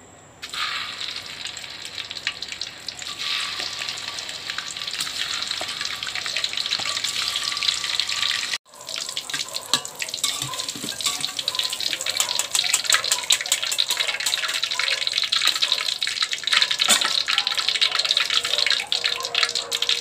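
Tofu frying in hot oil in a wok: a steady sizzle that starts suddenly as the pieces go into the oil, with many small pops and spatters throughout. It breaks off for an instant about eight and a half seconds in.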